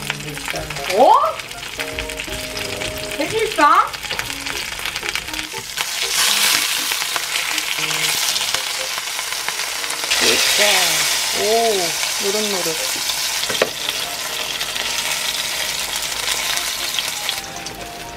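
Starch-coated hairtail pan-frying in oil: a steady sizzle that swells about six seconds in and drops off shortly before the end. Background music runs over it, with two short rising tones about one and four seconds in and a wavering tune in the middle.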